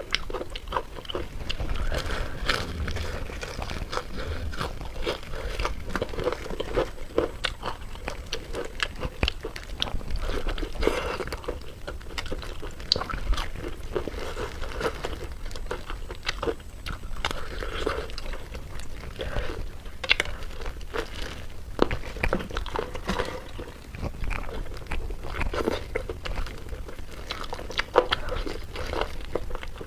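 A person biting and chewing crunchy food, with many irregular crisp crunches and chewing sounds throughout.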